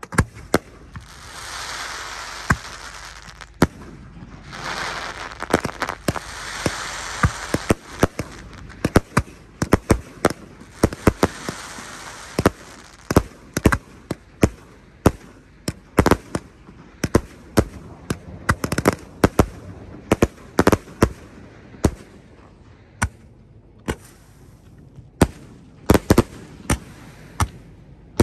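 Aerial fireworks going off in quick succession: many sharp bangs and pops from launches and shell breaks, with a stretch of steady hissing crackle in the first eight seconds or so.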